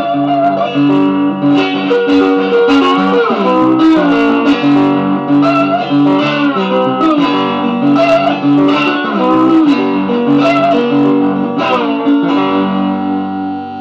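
Electric guitar played solo: a lead line of single picked notes, with string bends and slides, ending on a chord that rings on and fades near the end.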